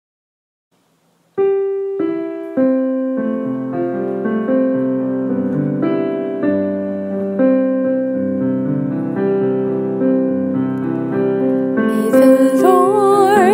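Silence, then about a second and a half in a piano starts a slow introduction to a worship song, with struck chords and a melody that ring and fade. Near the end a voice comes in singing over the piano with a light vibrato.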